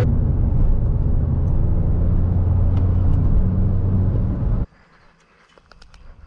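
The 2007 Mini Cooper S R56's turbocharged 1.6-litre four-cylinder, running a stage 2 tune and a Remus exhaust, heard from inside the cabin while driving at a steady engine speed: a loud, steady, low engine and exhaust note. It cuts off abruptly about four and a half seconds in, giving way to a quiet outdoor background with a few faint clicks.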